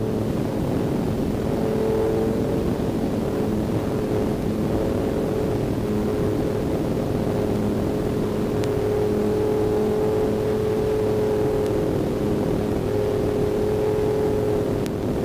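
Aventura II amphibian's engine and propeller running steadily at cruise power, with air rushing past the airframe.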